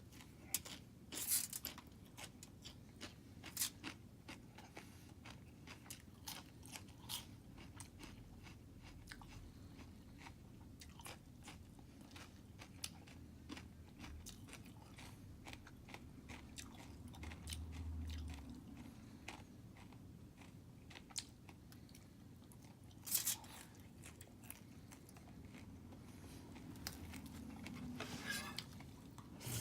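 A person biting and chewing crunchy food close to the microphone: a steady run of small sharp crunches, with a few louder bites among them.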